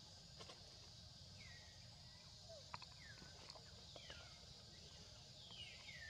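Faint forest ambience: a steady high insect drone, with about four short falling chirps and a few light clicks.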